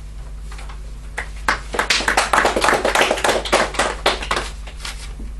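An audience clapping, starting about a second in, loudest in the middle and dying away near the end.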